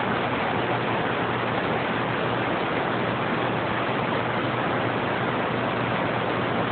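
Radio receiver static: a steady, even hiss from an open channel with no station coming through.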